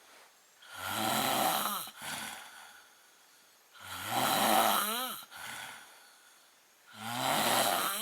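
A man snoring heavily: three loud snores about three seconds apart, each followed by a softer breath. The second snore ends in a rising, whistling squeak.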